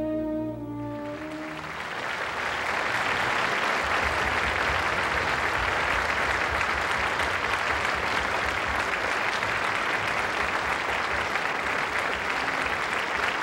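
The last notes of a French horn and orchestra stop in the first couple of seconds, then a concert hall audience applauds steadily.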